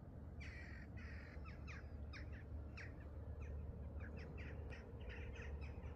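Birds calling outdoors: a quick series of many short calls, some overlapping, starting about half a second in and going on throughout, over a steady low rumble.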